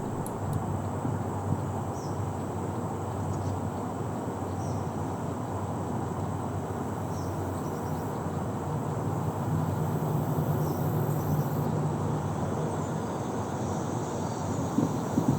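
Park field ambience: a steady low rumble of distant traffic under a constant hiss, with a few faint, short high chirps.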